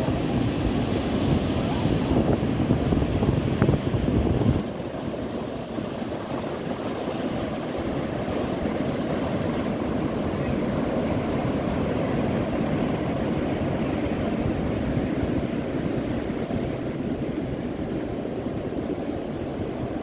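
Gulf surf breaking and washing onto a sandy beach, a steady hiss of waves. Wind buffets the microphone for the first four or so seconds, then drops away suddenly.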